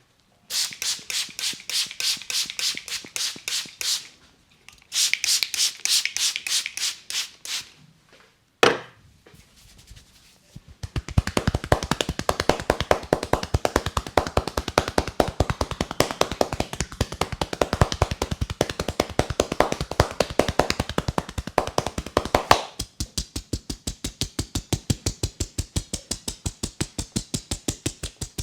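A barber's hands rapidly tapping and slapping a client's head in an Indian head massage, in quick rhythmic runs that change sound from run to run. One single sharp crack stands out about eight and a half seconds in.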